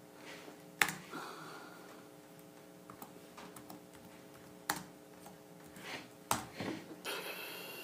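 Scattered key taps and clicks on a laptop keyboard, with a few sharper, louder clicks among them.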